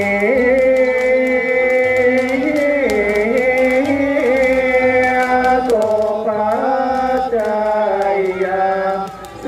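Music carried by one long, wavering, chant-like melody on held notes, with faint crackles through the first half.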